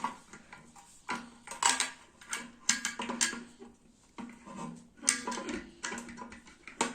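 Irregular small metallic clicks and clinks from the parts of an opened steam iron being handled while its thermostat adjustment is set.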